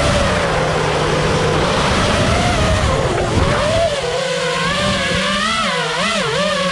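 FPV racing quadcopter's brushless motors (Hypetrain 2306 2450kv) spinning 5-inch props in flight: a whine whose pitch glides up and down with throttle changes, wavering quickly in the second half.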